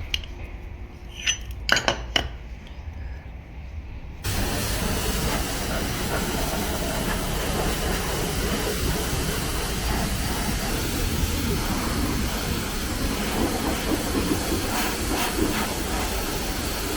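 A few sharp knocks as parts are handled, then, about four seconds in, a sudden switch to a steady hiss of a high-pressure water spray washing down the engine.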